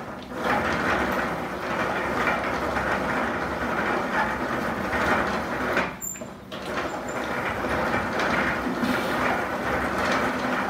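Hand-cranked rope-making machine in operation: a steady rattling clatter as its geared wheel turns and twists the strands together into rope. The clatter dips briefly about six seconds in.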